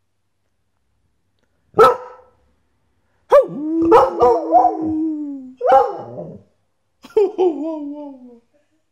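Border Collie barking and howling: a single short bark about two seconds in, then a run of loud howls and yowls that slide down in pitch, one held for over a second, broken by another bark, and ending in a falling howl near the end.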